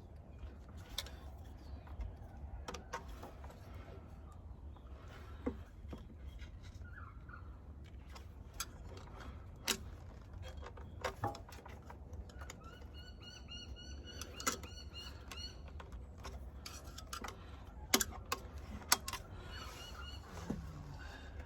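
Scattered clicks and knocks of hand tools and metal parts being handled during work on the backhoe, over a low steady rumble. In the middle a bird gives a quick run of repeated calls for a couple of seconds.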